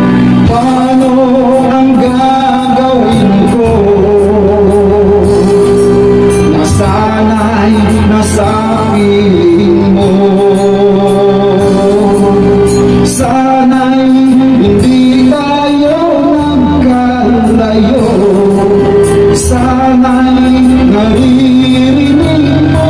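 A man singing a Tagalog pop ballad into a microphone over a recorded backing track, with long held notes and vibrato.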